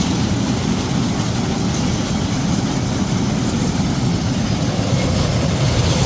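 Steady rumbling noise of a moving train, with no distinct knocks or tones.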